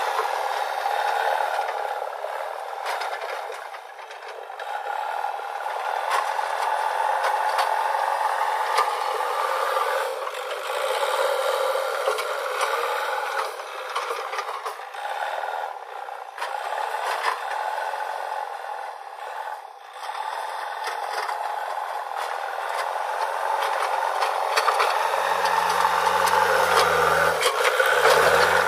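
JCB 3DX backhoe loader at work: its diesel engine running under a continuous clatter of rattles and scrapes from the bucket and linkage. The sound is thin, without its low end, until near the end, when the engine's deep rumble comes back.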